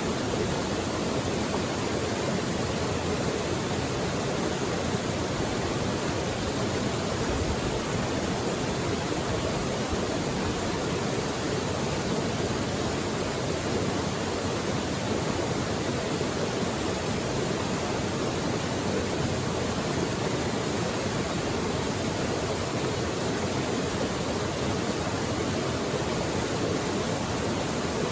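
Mountain creek running steadily, an even rush of water with no breaks or changes.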